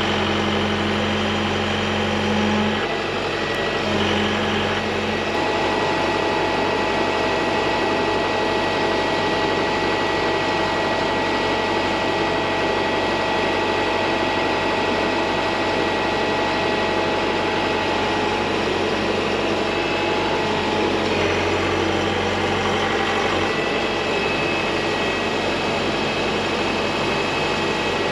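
Mecalac 8MCR compact excavator running, its engine and hydraulics working as the arm is moved. The pitch shifts several times as the load changes: a steady whine holds through the middle, and a deeper hum comes and goes near the start and again later.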